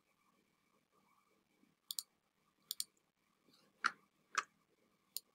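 Faint, sharp clicks of a computer mouse: about five in all, the first two each a quick double click.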